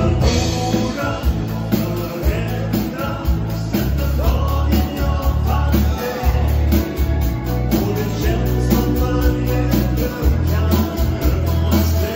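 Live dansband music: a male vocalist sings over electric guitar, keyboard, bass and a drum kit keeping a steady beat.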